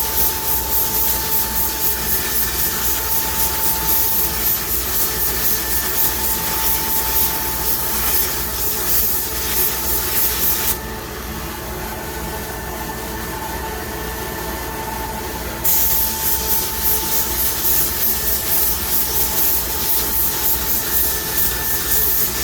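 Sata X5500 spray gun spraying base coat: a steady hissing rush of air and paint. It stops for about five seconds near the middle, then starts again.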